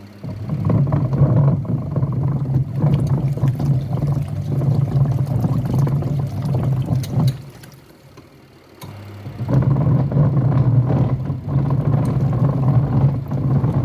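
Twin tub washing machine's wash motor running with a rumbling noise, the fault being shown. It stops for about two seconds midway and then starts again, as the wash cycle pauses to reverse direction.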